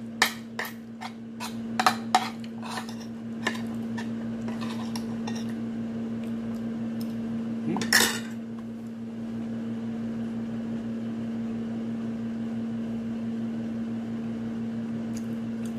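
Cutlery and dishes clinking during a meal: a quick run of scattered light clicks over the first few seconds, then one louder knock about halfway through. A steady low hum runs underneath.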